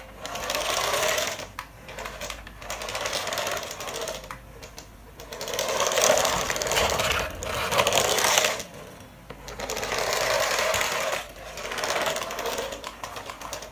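Small electric motor and gearbox of a battery-powered remote-control toy bus whirring as it drives. It comes in about five spurts of one to three seconds, with short pauses between them as the remote's buttons are pressed and released.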